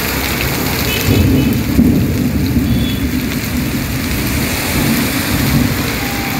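Heavy rain pouring steadily on a street. A low rumble of thunder swells about a second in and fades over the next couple of seconds.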